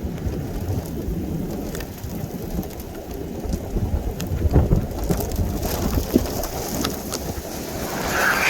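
Rain during a thunderstorm, with scattered drops ticking sharply close by over a low rumble. A hiss swells near the end.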